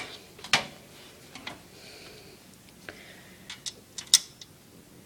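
Scattered sharp clicks and taps of a screwdriver and screw against a metal computer case as a power supply mounting screw is fitted. The clicks come at irregular intervals, and the loudest is about four seconds in.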